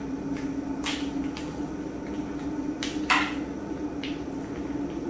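Paprika being shaken from a spice container over a casserole: a few short scratchy shakes and clicks, the loudest about three seconds in, over a steady low hum.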